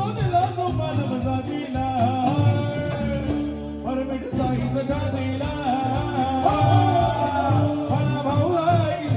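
Marathi devotional bhajan music: a wavering melodic lead line over a steady percussion beat, in a stretch between sung verses.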